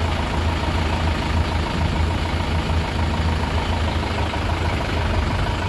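Mahindra Yuvo Tech+ 575 tractor's diesel engine idling steadily with a low, even rumble.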